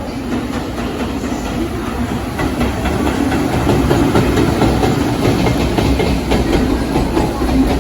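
Freight train hauled by a JR Freight electric locomotive passing close by, its wheels clattering on the rails, growing louder after the first couple of seconds.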